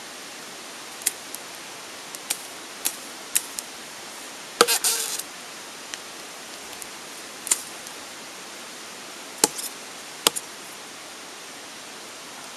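Machete whacking and snapping branches: a dozen or so sharp, irregular cracks, with a longer crackling cluster about five seconds in, over a steady hiss.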